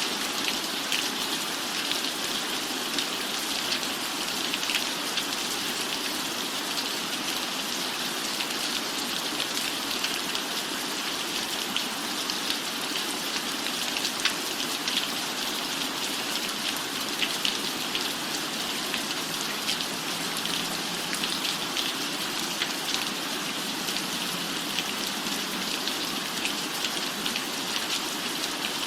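Steady rain falling on a surface, with many individual drops ticking sharply over an even hiss.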